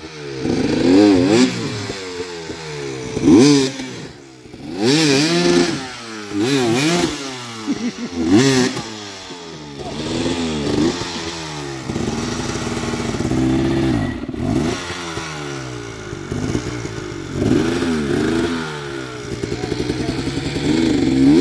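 Off-road dirt bike engines revved hard in repeated bursts, the pitch rising and falling every second or two, as the bikes struggle for grip on a steep, muddy climb.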